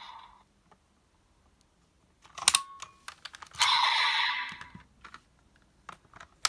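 Sharp plastic clicks from a toy Kamen Rider Geats Raise Buckle being handled and snapped into place, in two clusters, with a short, hissy electronic sound effect from a toy's small speaker about three and a half seconds in.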